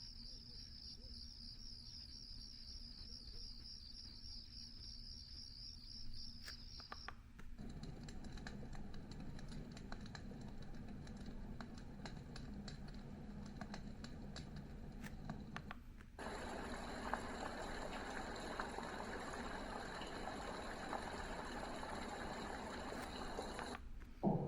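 Dreamegg D1 white noise machine playing its built-in sounds in turn: a high warbling, chirping tone for about seven seconds, then a low steady noise, then from about two-thirds of the way in a brighter, fuller hiss of white noise.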